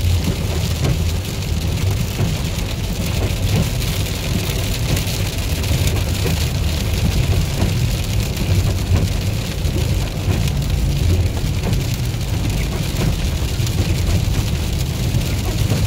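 Car driving on a wet highway in rain, heard from inside the cabin: a steady hiss of rain and tyre spray over a constant low rumble of road and engine.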